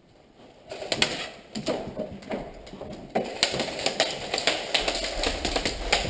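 Airsoft guns firing in an indoor hall, with BBs clicking and smacking against surfaces. The sharp, irregular cracks start about a second in and get denser and louder about halfway through.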